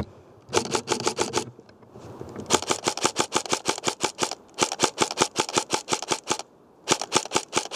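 Custom M4 airsoft electric gun (AEG) firing full-auto in four bursts, about ten shots a second.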